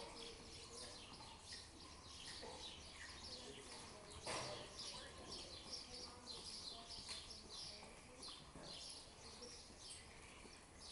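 Faint, busy chirping of small birds, many short chirps throughout, with a single sharp knock about four seconds in.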